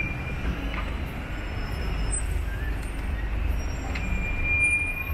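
Busy city-street traffic: a steady low rumble of buses and cars idling and passing. A thin high steady tone sounds briefly at the start and again for about a second near the end.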